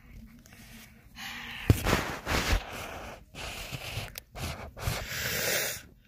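Rustling and handling noise close to a phone's microphone, in irregular noisy bursts with a couple of low thumps about two seconds in.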